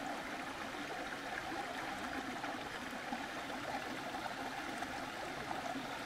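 Small forest waterfall and stream running steadily: an even, unbroken rush of water.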